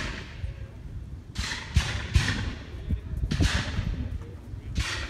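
Black-powder gunfire: about six sharp reports at irregular intervals, bunched in the middle and with one more near the end, each trailing off in a short echo.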